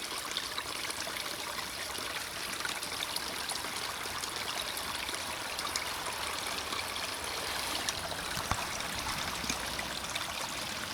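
Small stream running over rocks and short drops: a steady trickling and splashing rush, flecked with little splashes.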